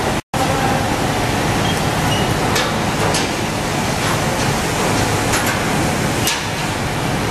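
A loud, steady rushing noise, broken by a split-second dropout just after the start. A few faint light clinks from the steel frame members as they are handled and raised sound over it, about a second apart in the middle of the stretch.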